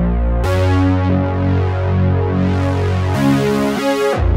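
Behringer Model D analog synthesizer sounding sustained low notes. Its tone changes abruptly about half a second in and again about three seconds in, turning much brighter and buzzier, then turns darker near the end as the oscillator and filter knobs are turned.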